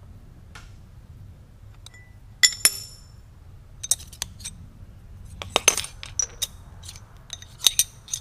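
Small steel parts clinking and ringing against the steel jaws of a Kurt milling vise as they are set in and lifted out: a string of sharp metallic clinks, the loudest pair about two and a half seconds in, over a low steady hum.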